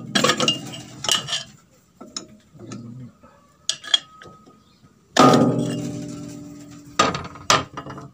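Metal-on-metal strikes on a rice husker's roll assembly, as a steel bar is knocked against it while the worn roll is being changed. Several sharp knocks ring on like struck metal; the loudest, about five seconds in, rings for about two seconds, and two quick knocks follow near the end.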